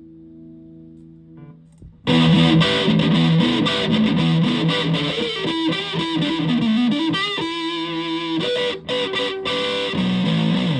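Electric guitar with humbucker pickups through a heavily modified Buzzaround fuzz pedal. A held chord fades out, then about two seconds in a loud, fuzz-distorted riff starts, with a couple of short stops near the end before it cuts off.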